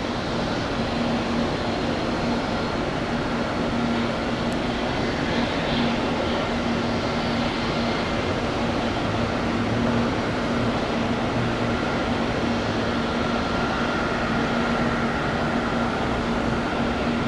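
Steady airport ambience: an even rushing noise of jet engines running across the airfield, with a constant low hum.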